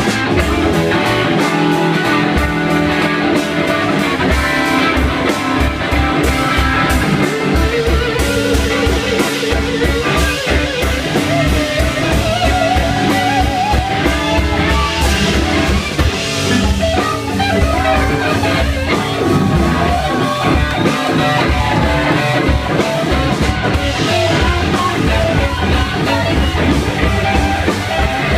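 Live blues-rock band playing: an electric guitar lead with bent, wavering notes over a steady drum beat.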